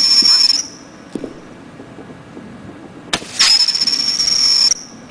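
Whistling fireworks: a steady high-pitched whistle that cuts off about half a second in, then a sharp crack a little past three seconds in and a second whistle lasting about a second and a half.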